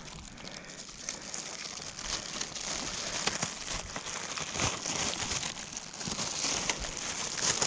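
Continuous crinkling and rustling of packaging being handled and opened, with many small crackles that grow a little louder toward the end.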